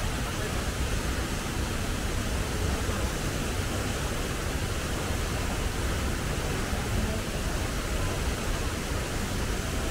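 Tibumana waterfall pouring into its pool: a steady, even rush of falling water.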